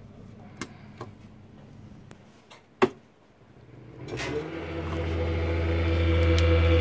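A few light clicks and one sharp click, then about four seconds in the lift motor on the test rig, driven by an Otis OVF20 lift drive under test and commanded to run down, starts up and ramps to a steady hum with a higher whine.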